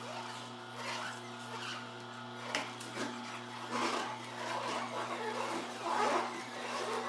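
Masticating slow juicer running with a steady motor hum while spinach leaves are pushed down its feed chute with a plastic plunger. Irregular crackling and rubbing as the leaves are crushed and the plunger scrapes in the chute, louder about four and six seconds in.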